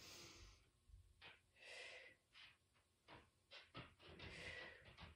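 A woman's faint paced breathing: three long airy breaths through the mouth during Pilates single-leg circles, with a few soft clicks between them.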